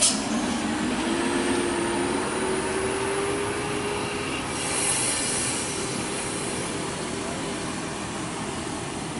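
Loaded Hino dump truck's diesel engine labouring under load through a steep hairpin, its pitch rising steadily over the first four seconds, then easing. A short sharp hiss of air sounds at the start and a longer hiss about five seconds in.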